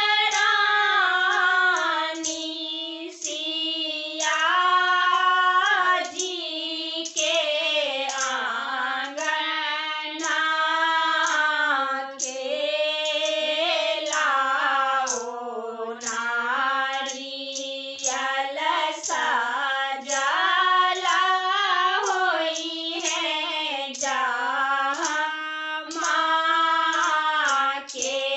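Three women singing a Maithili Chhath folk song (a sanjh geet to Chhathi Maiya) together in unison, unaccompanied, in long phrases whose melody slides up and down.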